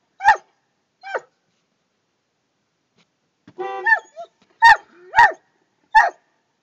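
St. Bernard whining: two short whines, a pause, a longer drawn-out whine about three and a half seconds in, then three short, sharp calls in quick succession.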